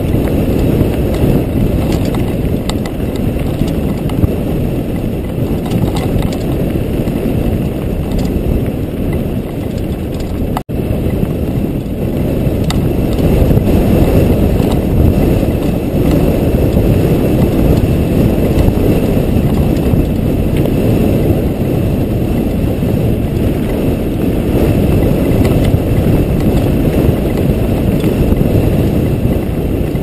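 Loud, steady wind buffeting and rumble on a helmet-mounted GoPro Hero 2 as a mountain bike rolls fast down a dirt track, with faint ticks of gravel under the tyres. The sound cuts out for a split second near the middle.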